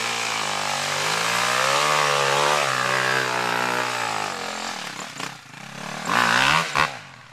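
KTM EXC 250-F's four-stroke single-cylinder engine revving up and down while the bike is stuck in a bog, the revs dropping away about four seconds in, then another short burst of revs about six seconds in.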